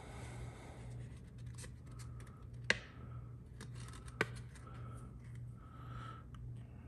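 Faint scratching of a fine-tip Gundam Marker pen drawing short strokes on a painted miniature shield, with two light clicks about a second and a half apart, over a low steady hum.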